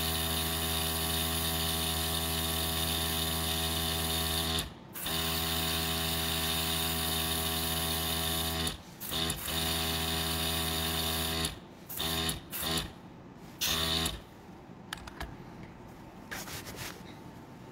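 Small airbrush compressor running with a steady hum, cutting out briefly twice, then starting and stopping in short spurts before it stops about three-quarters of the way through.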